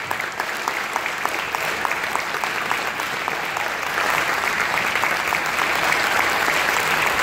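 Audience applauding, with one pair of hands clapping close by at about five claps a second; the applause swells about four seconds in.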